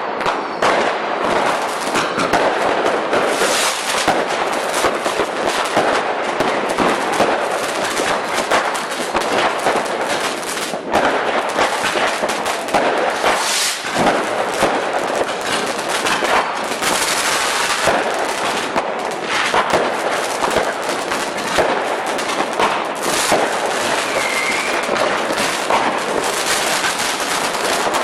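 Firecrackers going off in a dense, unbroken crackle of rapid bangs, with only brief dips around the middle.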